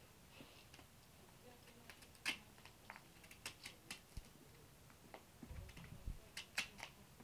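Knife cutting the rind off a pumpkin half: a series of small, crisp, irregular clicks and snaps, the sharpest about two seconds in.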